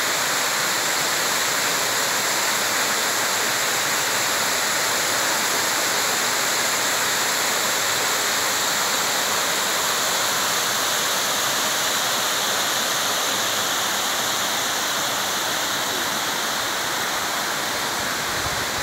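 A small waterfall pouring over a rock ledge into a pool, a steady rush of falling water, a little softer near the end.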